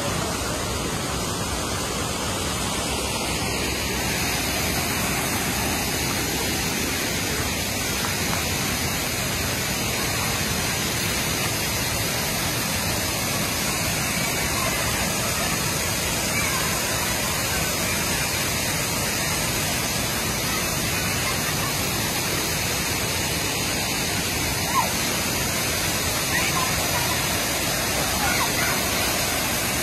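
Water rushing over shallow river rapids, then a broad waterfall pouring: a loud, steady, even rush of falling water.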